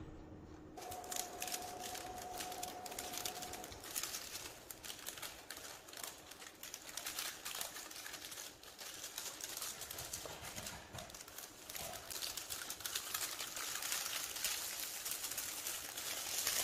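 Metallic gold film and a clear plastic bag crinkling and crackling as they are handled and smoothed by hand: an irregular run of small crackles.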